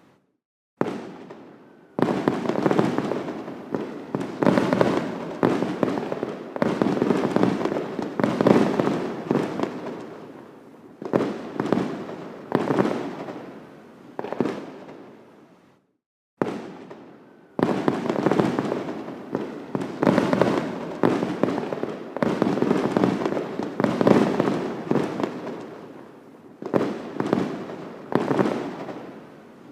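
Fireworks display: aerial shells bursting in quick succession, each bang trailing off into a long echoing decay. Near the middle the sound cuts off abruptly to silence for about a second, then the bursts resume.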